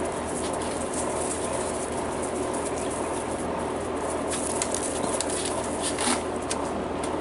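Australian Shepherd puppies scuffling and play-wrestling on gravel: many short, sharp high clicks and scratches over a steady background hiss.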